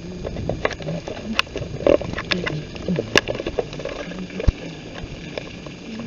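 Footsteps of sneakers on a wet, rain-soaked street, with irregular taps, knocks and small splashes and the rubbing of the camera being handled.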